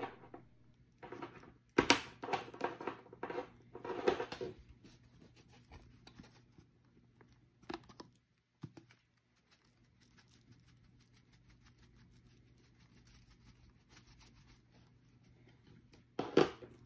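Ground black pepper shaken from a tin shaker over meat in a plastic-lined slow cooker: a few bursts of quick shakes with pattering and plastic crinkling in the first few seconds, and another short burst near the end. A faint steady low hum runs underneath the quiet middle stretch.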